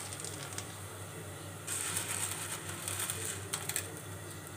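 A pot of water at a rolling boil as dry spaghetti is dropped in. The bubbling hiss grows louder from about two seconds in, with a few light clicks, and eases off near the end.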